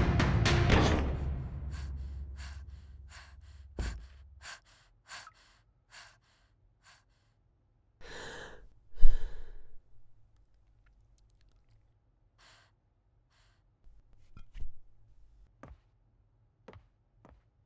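Music cuts out in the first second. Footsteps, about two a second, fade away over several seconds; then a boy sighs deeply, two long breaths out with a thump between them, and a few soft footsteps follow near the end.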